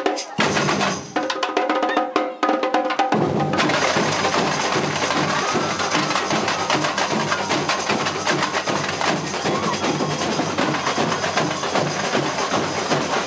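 Brazilian samba bateria drum corps playing: bass drums, snares and other hand percussion. After a few short, broken-off phrases, the full group with its deep drums comes in about three seconds in and plays on without a break.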